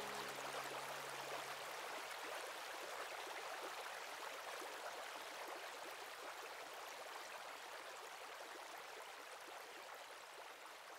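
Creek water running, a steady even rush that slowly fades away.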